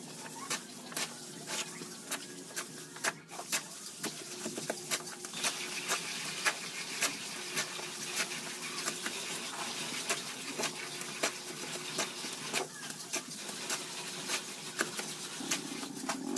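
Hollow concrete blocks being set into mortar by hand, with irregular small clicks, knocks and scrapes of block on block and trowel on concrete.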